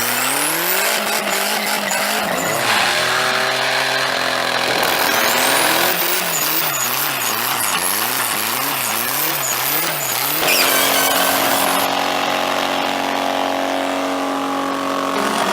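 Drift car engine revving hard and rising and falling rapidly with throttle blips, over tire squeal. It comes as several short clips with abrupt changes between them.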